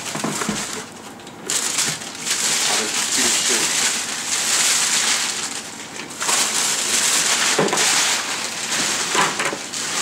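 Packaging being handled and unwrapped: plastic and paper wrapping rustling and crinkling in two long stretches with a short pause between them, about six seconds in.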